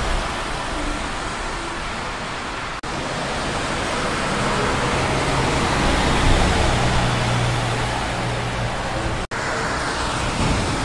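Steady highway traffic with tyres hissing on wet pavement. A heavy truck's engine drone swells in the middle as it passes. The sound drops out for an instant twice, about three seconds in and near the end.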